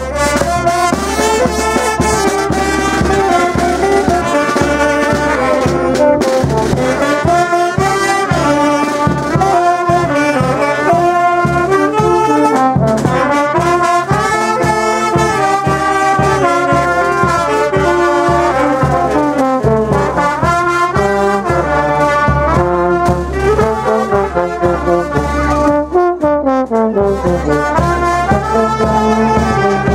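Small village brass band of saxophones, trumpets and clarinet playing a lively festival tune together, with drums keeping a steady beat underneath.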